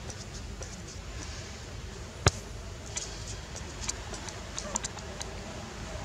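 Steady low rumble and hiss with a single sharp, loud click a little over two seconds in, followed by a scattering of fainter ticks and clicks.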